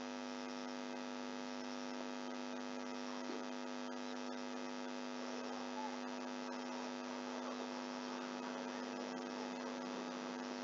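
Steady electrical mains hum with a buzzy stack of overtones, running without change.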